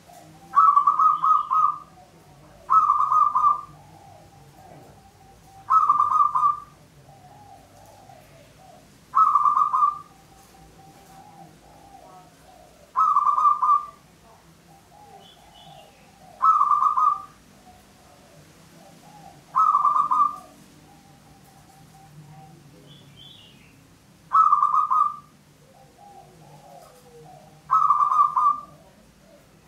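Zebra dove (local Javanese perkutut) singing: nine short, loud cooing phrases, each under a second, repeated about every three seconds with one longer pause about two-thirds of the way through.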